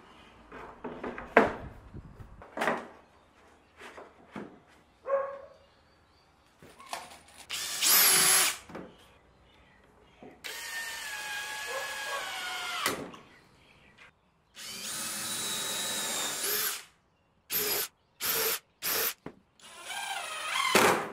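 Cordless drill driving screws into a pine and plywood frame in several runs of a few seconds each, then a few short trigger bursts near the end. The first seconds hold scattered wooden knocks and taps as the frame pieces are handled.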